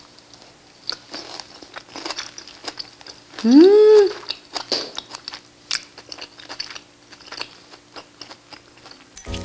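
Close-up sounds of a person chewing a mouthful of salmon with whole-grain mustard: soft wet mouth clicks and smacks. About three and a half seconds in comes a loud, appreciative "mmm" that rises and then falls in pitch.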